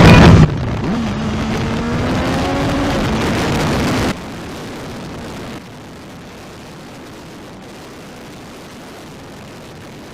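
Car driving sounds: a very loud steady sound with a low tone cuts off suddenly about half a second in. An engine then speeds up, its pitch rising over a few seconds, before the sound drops to a steadier road and wind noise that gets quieter in two sudden steps.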